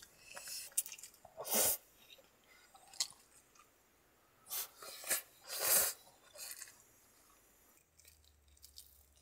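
A person eating cup ramen noodles close up: several short slurps and chewing noises, with pauses between them.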